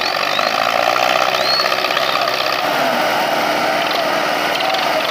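Diesel engines of Belarus MTZ tractors running hard and steady under heavy load, straining against each other in a tractor tug-of-war.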